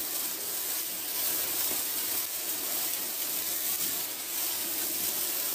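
A hand-held bundle of Morning Glory sparklers burning with a steady hiss as it sprays sparks, before any popping starts.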